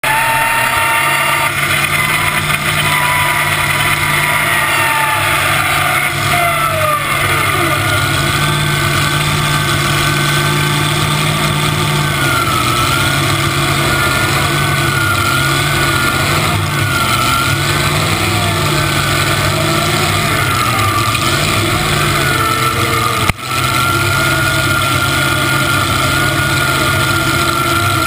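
Pulling tractor's supercharged V8 engine with open zoomie exhaust pipes idling loudly and steadily, with small rises and dips in revs partway through. A brief dropout in the sound about 23 seconds in.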